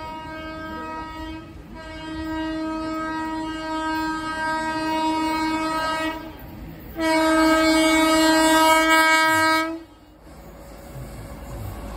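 WAP-7 electric locomotive's air horn sounding three long, steady blasts as the express approaches; the last blast is the loudest. After the horn stops, the rumble of the oncoming train grows louder.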